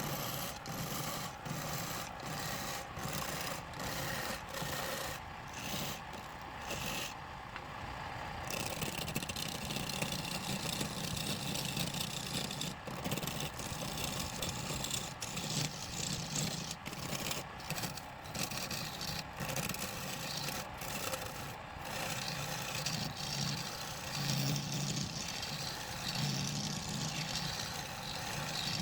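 Wood lathe running while a turning tool scrapes and cuts into the spinning wood, a steady rasping noise with brief breaks throughout.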